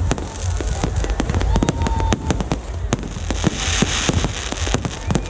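Fireworks going off in a dense run of sharp bangs and cracks over a low rumble, with a burst of hissing crackle about four seconds in.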